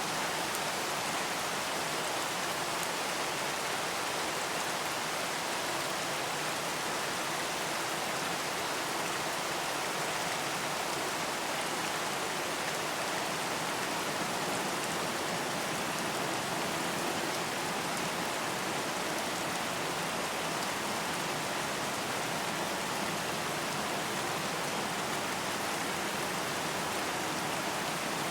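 Steady rain falling, an even hiss of many drops with no single drop or patter standing out and no change in strength.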